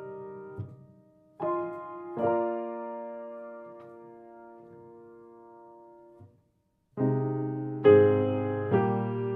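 Slow piano music: held chords struck and left to die away. After a brief silence about six seconds in, fuller chords follow more quickly.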